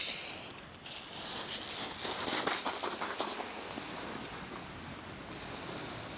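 Shingle pebbles crunching and clattering as a person scrambles on a steep pebble beach: a dense run of crackles in the first few seconds. After that comes a steady low hiss of wind and sea.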